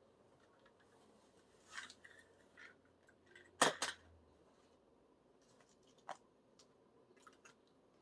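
Handling a sealed CD album package: scattered plastic crackles and light clicks, with two sharp clicks close together a little past halfway.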